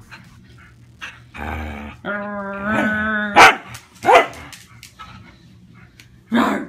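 Blue Heeler (Australian cattle dog) vocalising in play: a rough growl, then a long steady-pitched call, followed by three short sharp barks.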